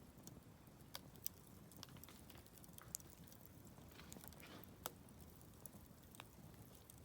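Wood campfire crackling: irregular sharp pops and snaps over a faint low hiss, the loudest snaps about a second, three seconds and five seconds in.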